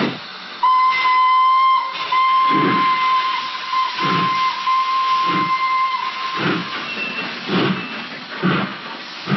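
Steam locomotive whistle blowing one steady note, broken briefly about two seconds in and cutting off about six seconds in. Under it, steam hisses and the locomotive's exhaust chuffs slowly, about once a second and gradually quickening.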